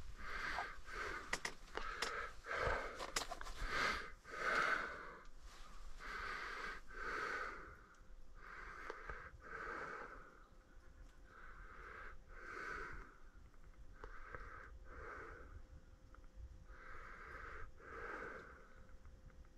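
A man breathing close to the microphone, a breath about every second, louder in the first few seconds and quieter later: the breathing of a man sick with a fever. A few light clicks come in the first few seconds as he handles his fishing tackle.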